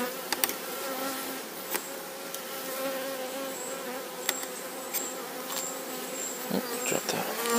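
Steady buzzing hum of a honeybee colony around an open hive, with scattered sharp clicks and scrapes of a metal hive tool on the wire queen excluder as burr comb is scraped off.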